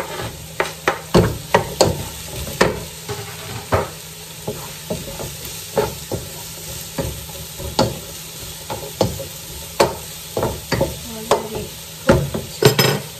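Wooden spoon stirring diced courgette and mushrooms in a non-stick wok, knocking against the pan irregularly, one or two times a second, over a steady sizzle of the vegetables frying. A quick cluster of knocks comes near the end.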